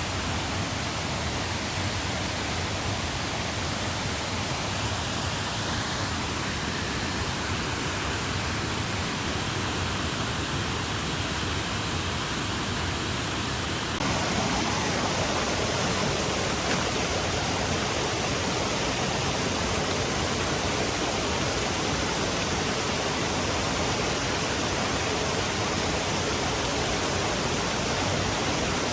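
Steady rushing-water noise, stepping up a little in level and turning brighter about halfway through.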